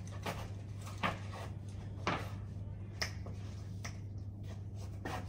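Footsteps on a hard floor, short clicks about once a second, over a steady low hum of room tone.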